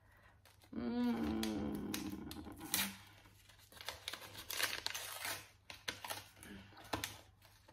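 Paper envelope being opened and the paper inside pulled out and unfolded: a run of short paper crackles and rustles. About a second in there is a brief wordless vocal sound.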